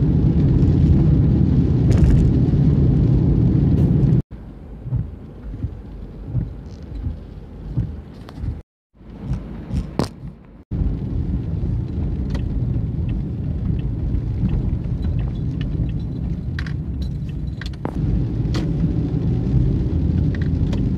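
A car driving on a wet road in rain: a steady low rumble of road and wind noise. The rumble is cut off abruptly several times, and a quieter stretch a few seconds in holds scattered knocks and clicks.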